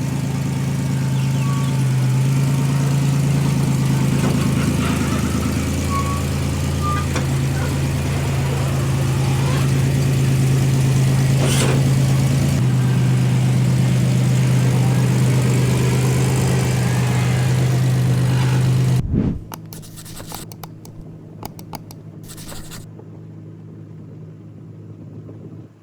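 A vehicle engine idling steadily. About 19 seconds in it cuts off abruptly, leaving a much quieter stretch with scattered clicks and a low hum.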